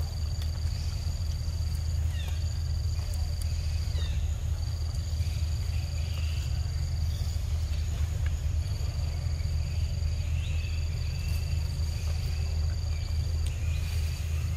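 Outdoor forest ambience with a steady low rumble. Over it, a high, thin steady buzz comes and goes in stretches of a few seconds, and a few short falling chirps sound near the start.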